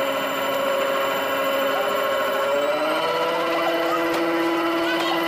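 Homemade ride-on miniature locomotive running on its track, its drive motor giving a steady whine made of several tones, which rises a little in pitch about two and a half seconds in.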